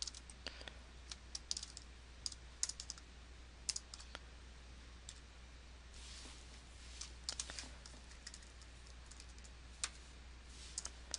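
Typing on a computer keyboard: faint, irregular key clicks in short runs with pauses between.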